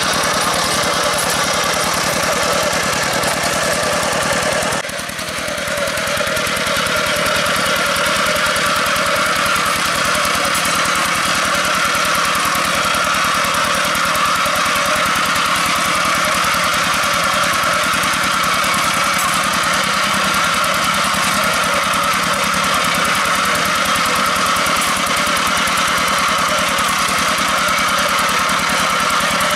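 Single-cylinder diesel engine of a two-wheel hand tractor running steadily under load as its cage wheels churn through a flooded rice paddy. The engine sound dips briefly about five seconds in, then runs on evenly.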